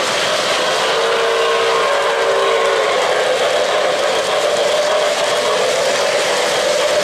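O-gauge model freight train rolling by close at hand, its metal wheels making a steady rolling noise on the three-rail track. A faint steady pitched tone rises above it twice, about a second in and again from about four seconds in.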